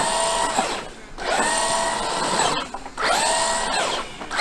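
Traxxas X-Maxx RC monster truck's brushless electric motor whining in short throttle bursts, about four in a row. Each rises in pitch, holds, then falls away as the throttle is released.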